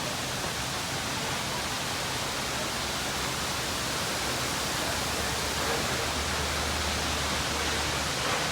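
Waterfall: a steady, even rush of falling water, with a little more low rumble in the second half.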